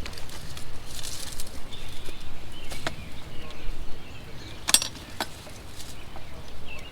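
Rustling through brush, with a few sharp clicks and knocks as a metal ammo can is pulled out and handled.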